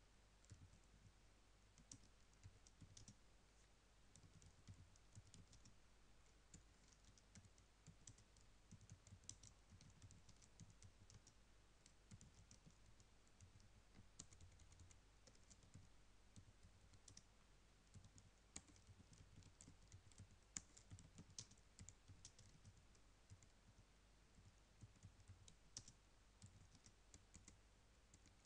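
Computer keyboard being typed on: faint, irregular keystroke clicks with short pauses, as a sentence is typed out.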